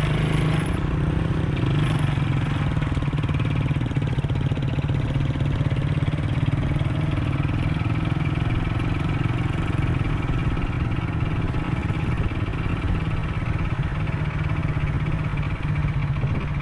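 Motorcycle engine running steadily as the bike rides along, with continuous road and traffic noise.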